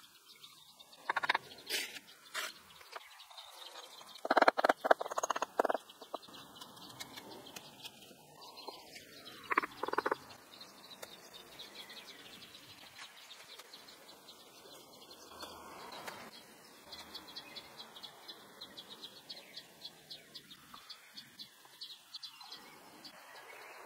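Steel brick trowel scraping and knocking against wet mortar and clay bricks in short bursts: a few strokes about a second in, the loudest cluster around four to six seconds, and another near ten seconds.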